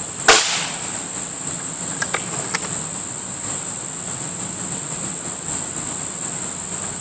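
A single shot from a Beeman RS2 .22 break-barrel spring-piston air rifle about a third of a second in, with two faint clicks about two seconds later. A steady high insect drone runs underneath.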